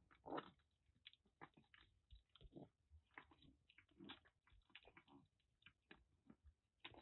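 Kittens licking paste from a squeezed treat tube: quiet, irregular wet smacks and clicks of tongues and mouths.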